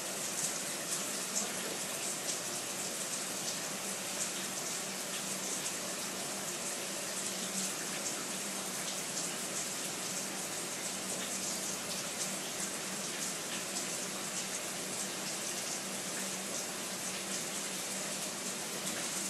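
Shower running steadily, its spray hissing and splashing on the tub or floor of a small bathroom.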